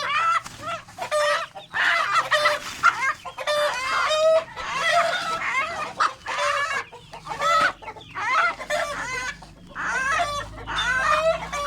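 Chickens clucking and squawking in a near-continuous stream of short, rapid calls.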